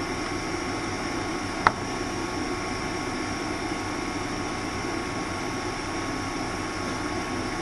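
Steady cabin noise inside the motor car of a JR 201-series electric train, with a thin steady hum and one sharp click a little under two seconds in.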